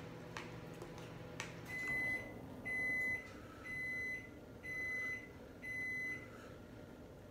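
Timer alarm beeping five times, one high steady beep about every second: the challenge's two-minute countdown has run out. Two faint clicks come just before the beeps.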